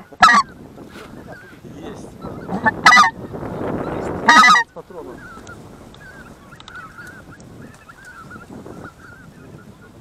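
Three loud, close goose honks in the first five seconds, followed by the steady fainter calling of a flock of white-fronted geese passing high overhead.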